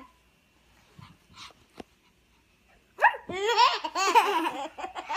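A young child laughing in high-pitched squeals, starting about three seconds in after a near-quiet stretch with a few soft knocks.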